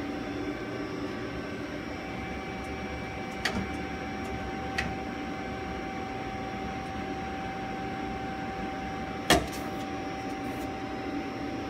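Steady machinery hum with a steady whine that comes in about a second and a half in, and a few sharp knocks, the loudest about nine seconds in.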